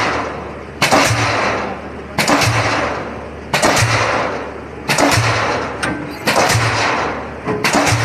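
A pile-driving hammer strikes a steel sheet pile about once every 1.4 seconds, six blows in all. Each blow is a sharp bang followed by ringing that fades, over the steady low hum of the rig's engine.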